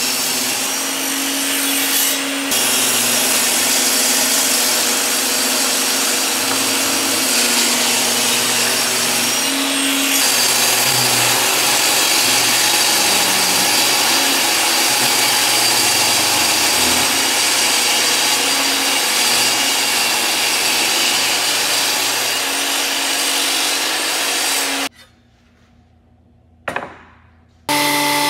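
Table saw running and ripping a walnut board lengthwise: a steady, loud motor-and-blade cutting noise. About 25 seconds in it cuts out to near silence with one short burst, and a Ryobi 10-inch thickness planer starts running, with a steady hum, just before the end.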